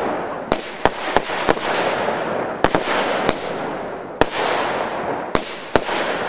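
Fireworks display: about ten sharp bangs at uneven intervals over a continuous hiss.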